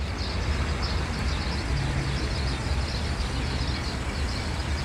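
Outdoor ambience of many small birds chirping in a continuous high chatter over a steady low rumble.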